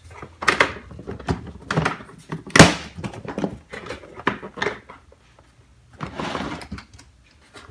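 Metal hand tools clinking and knocking as they are handled and set down in a tool box, a string of separate clicks and clunks, with a short scraping slide about six seconds in.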